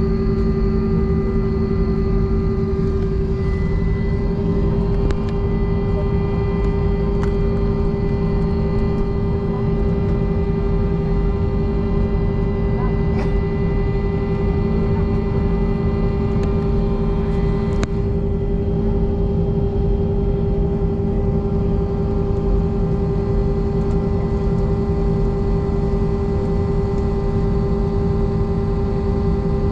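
Jet airliner's engines running steadily: a constant rumble with a strong, unchanging hum.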